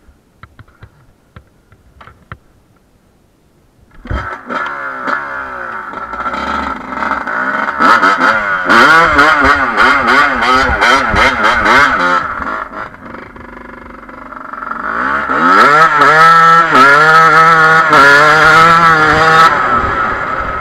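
TM 250 enduro dirt bike engine starting up about four seconds in, after a few faint clicks, then revving up and down in repeated surges as the bike rides through snow. It eases off for a couple of seconds around the middle, then revs hard again near the end.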